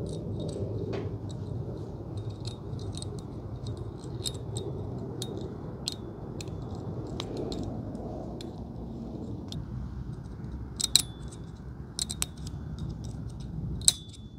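Steel snap ring being worked into its groove in a motorcycle fork's outer tube to hold the new oil seal: a run of small metallic clicks and scrapes with a brief ring, with two louder clicks near the end.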